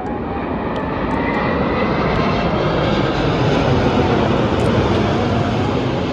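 Airplane passing low overhead: a broad engine rumble that swells to its loudest about four seconds in and then begins to fade.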